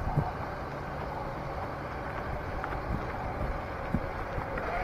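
RC scale crawler driving slowly over a gravel path, towing a trailer: a steady low rumble of tyres and drivetrain with a faint motor whine and a few small clicks of grit.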